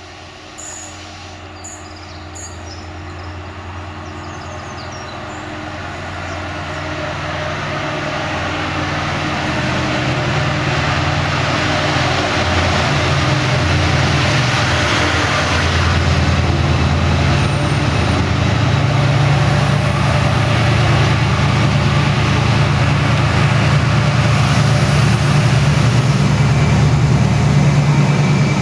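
Class 68 diesel-electric locomotive hauling passenger coaches, its Caterpillar V16 engine running under power with a deep drone that grows steadily louder and is loudest near the end. A few faint clicks come in the first couple of seconds.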